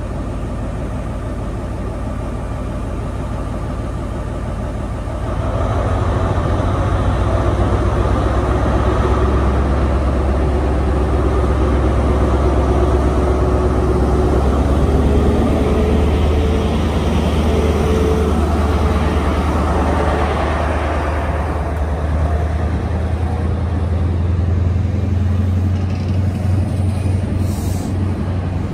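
Class 43 HST diesel power car running with a steady low hum. About five seconds in its engine opens up, with a tone that rises steadily for ten seconds or so as the train pulls away, then eases off.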